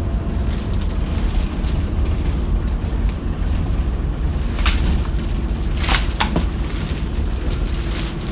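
Optare Solo bus heard from inside the saloon: a heavy, steady low rumble with rattles, and two sharp clatters about five and six seconds in, plus a thin high tone near the end. A horrible sound, which the uploader takes for the bus being ill.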